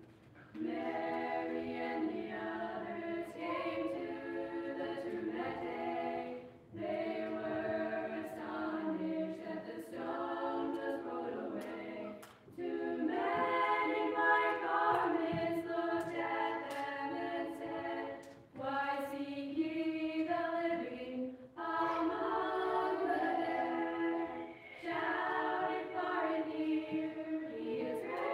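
Mixed school choir of young men and women singing a cappella in harmony, coming in about half a second in and singing in phrases broken by short breath pauses every few seconds.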